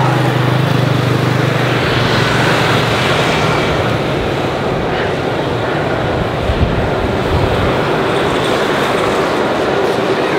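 Jet airliner noise: a loud, steady rushing roar, with a low hum underneath that fades out about two seconds in.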